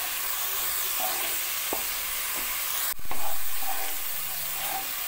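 Onion paste frying in hot oil in a non-stick pan, with a steady sizzle as a wooden spatula stirs it. A sharp click comes about three seconds in, and the sizzle is briefly louder after it.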